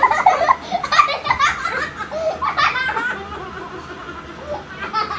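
A young boy laughing hard in quick bursts while being held down and played with roughly, loudest over the first three seconds and then tailing off.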